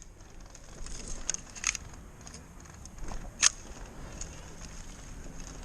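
Airsoft gun firing: one sharp shot about three and a half seconds in, with a few fainter snaps a second or so in.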